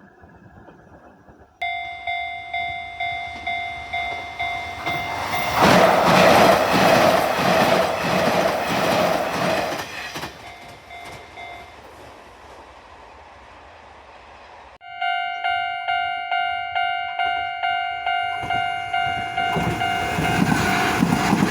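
Japanese railway level-crossing warning alarm clanging in a steady ding-ding about twice a second while an electric train runs through the crossing. The alarm stops about halfway in. A second crossing's alarm starts abruptly, and another train approaches near the end.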